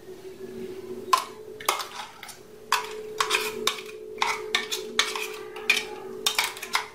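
Metal spoon scraping and clinking inside a stainless steel mixer-grinder jar while scooping thick ground green chutney out of it. There are a dozen or so sharp clinks and scrapes, starting about a second in.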